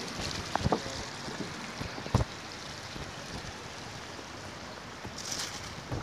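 Steady rushing of water running into a pond over a small ledge, with a few short knocks and a brief gust of wind on the microphone about five seconds in.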